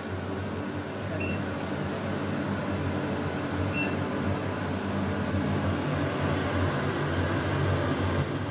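Faber kitchen chimney's extractor fan running with a steady whoosh and low hum. Its touch control panel gives two short high beeps as buttons are pressed, about a second and four seconds in.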